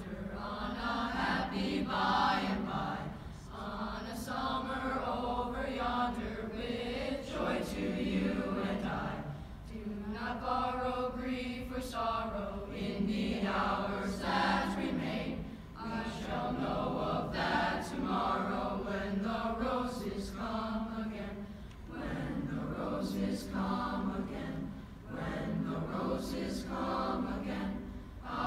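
Boys' choir singing a slow song in long phrases, with short dips between phrases every few seconds.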